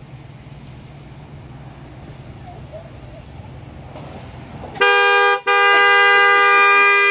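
Car horn set off by a dog in the driver's seat: a short honk about five seconds in, then a long unbroken blast held to the end. Before it, only a low steady hum and faint high chirps.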